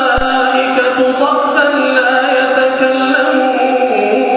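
A male voice reciting the Quran in slow, melodic tajwid chant, holding long drawn-out notes that shift in pitch.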